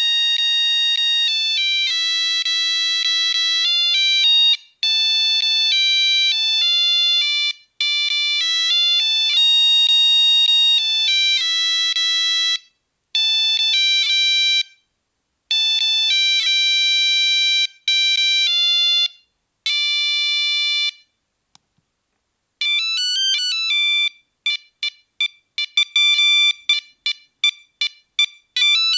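Nokia 3310 mobile phone playing monophonic ringtones: a slow tune of long held notes, then, after a short pause, a faster tune of short, quick notes.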